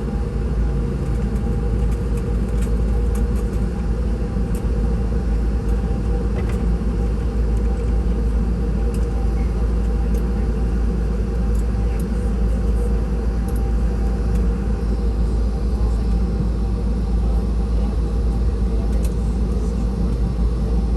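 Steady low rumble inside a Boeing 717 cabin as the airliner taxis after landing, with its rear-mounted Rolls-Royce BR715 turbofans at idle and a faint steady whine. Occasional faint clicks sound in the cabin.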